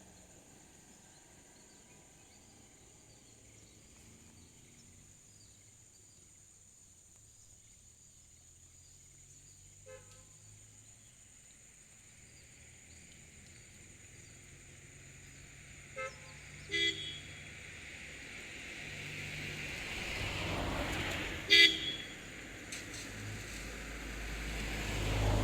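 Several short vehicle horn toots in the second half, the loudest a little past two-thirds through, with a vehicle passing by.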